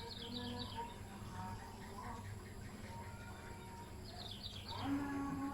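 A bird calling in the background: a quick run of falling chirps at the start, and another about four seconds in.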